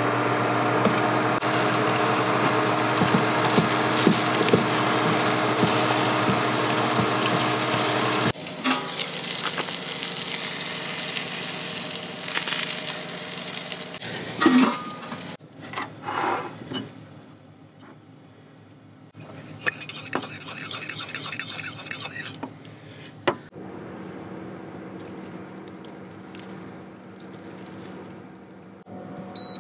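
Sliced mushrooms sizzling in oil in a frying pan on an induction cooktop, a loud even hiss over a steady hum that breaks off abruptly after about eight seconds. Quieter cooking sounds follow, with a few knocks and clanks of cookware.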